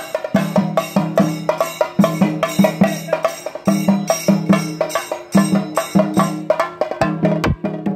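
Several chenda drums, Kerala cylindrical drums beaten with sticks, played together in a fast, driving rhythm of sharp, dense stick strokes over a ringing drum tone. The playing thins out briefly near the end.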